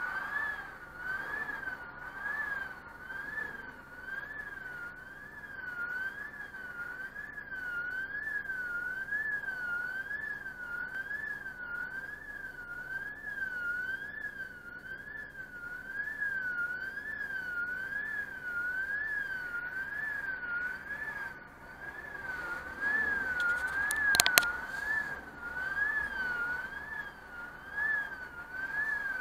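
Level crossing's electronic warning signal sounding while the barrier is down: one continuous warbling tone that sweeps up and down more than once a second. A single sharp knock about five seconds before the end over a brief swell of noise.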